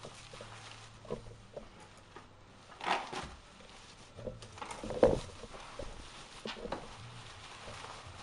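Parts and packaging of a WE Glock 17 airsoft pistol kit being handled: scattered clicks and light knocks, a brief rustle about three seconds in and a sharper knock about five seconds in.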